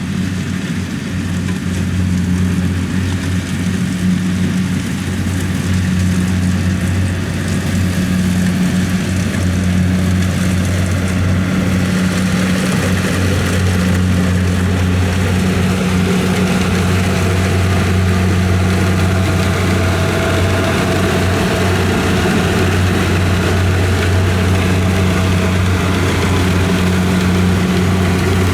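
Diesel engine of a Kubota rice combine harvester running steadily under load, with a deep, even hum.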